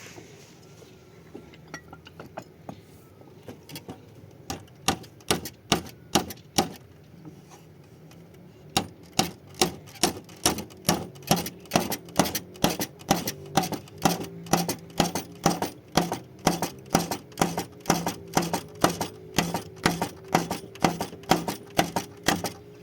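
A hammer striking in a fast, even rhythm of about three blows a second: a short burst of blows, a pause, then a long steady run.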